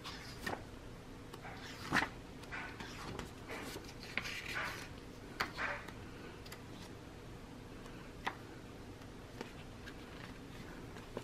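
Sheets of patterned paper being leafed through by hand: soft paper rustles and light flicks, a few seconds apart.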